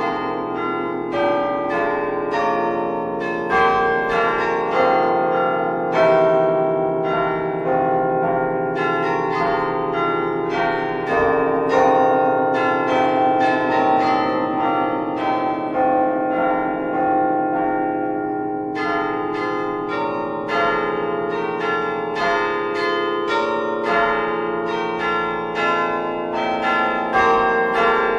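Bells ringing in quick strokes: several different notes struck in a rolling, repeating pattern, each note ringing on under the next.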